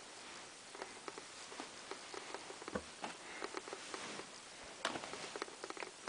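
Clothes rustling as they are handled and moved about in a plastic laundry basket, with a few soft knocks.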